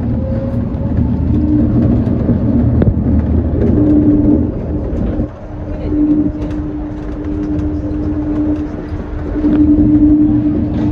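Shonan Monorail 5600-series suspended monorail car running along its track, heard from the front of the car: a steady low rumble with a steady hum that drops away briefly about five seconds in.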